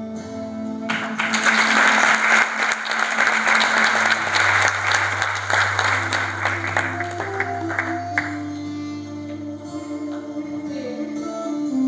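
An audience applauding over slow instrumental background music. The clapping starts about a second in and dies away at around eight seconds, while the music's held notes carry on.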